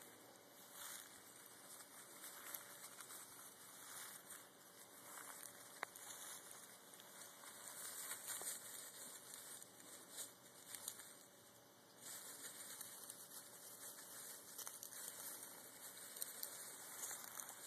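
Faint, irregular rustling and crackling in dry leaf litter as nine-banded armadillos root and dig for food.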